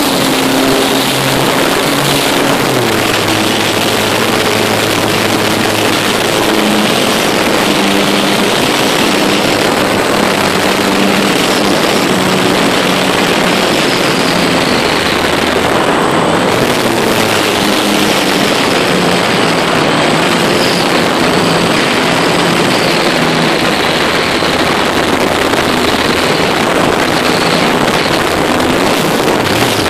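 Multiplex Gemini RC plane's twin electric motors and propellers running, with heavy wind rush over the on-board phone microphone. The motor tone steps and drifts up and down in pitch as the plane tumbles out of control, unbalanced by the phone strapped to it.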